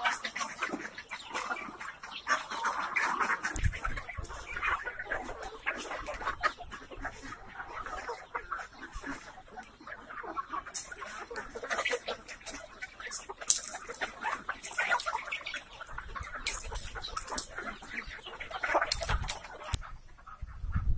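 A flock of domestic fowl calling continuously, with many short clucks and squawks overlapping.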